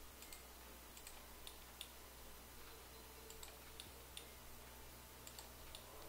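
Faint computer mouse clicks, a dozen or so scattered through, several in quick pairs, over a low steady hum.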